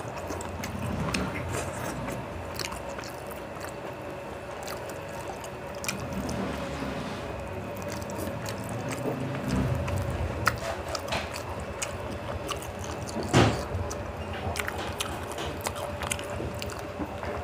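A person eating rice and curry by hand, close to the microphone: wet chewing and lip smacks, and fingers squishing and mixing rice on the plate, with one sharper smack about thirteen seconds in. A faint steady hum runs underneath.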